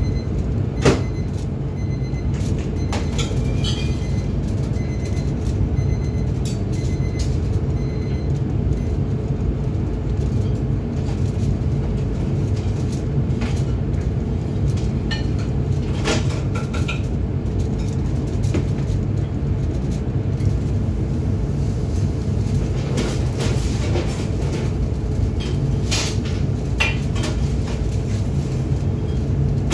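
Steady low rumble of a commercial kitchen extraction hood fan running, with scattered clicks and clatters of utensils and cookware.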